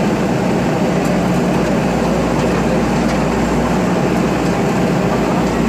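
JCB backhoe loader's diesel engine running steadily under load, working the hydraulics as the backhoe arm swings and empties its bucket of soil.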